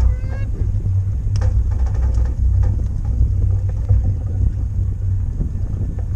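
Steady low rumble aboard a pontoon fishing boat on open water, with a few faint knocks.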